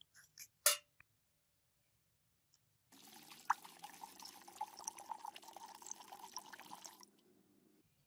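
Water poured in a stream into an empty stainless steel pot, splashing for about four seconds before stopping abruptly. Before it, in the first second, a few brief clicks.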